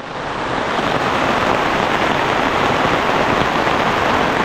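Heavy rain pouring down steadily, a dense, even hiss of falling water.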